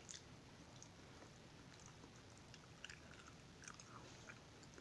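Faint chewing of soft fried banana with cheese, with a few soft mouth clicks scattered through, most of them about three seconds in.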